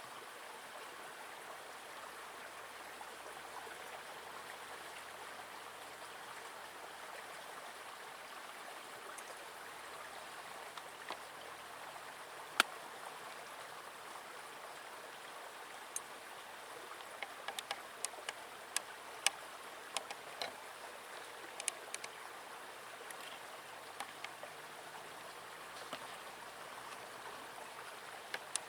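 Small forest stream running, a steady faint rush of water. From about halfway in, scattered sharp clicks and taps sound over it, thickest for a few seconds past the middle.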